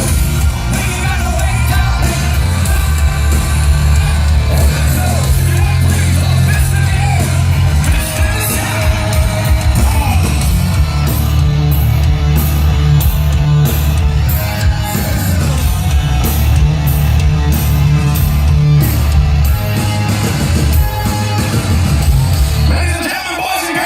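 Hard rock band playing live at full volume: distorted guitars, heavy bass and drums, with a singer shouting the vocal line. The heavy low end cuts out near the end as the song finishes.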